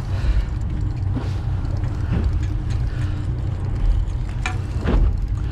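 Fishing boat's engine running, heard as a low steady rumble with a faint steady hum over it. A few short knocks and clicks come through, the loudest about four and a half and five seconds in.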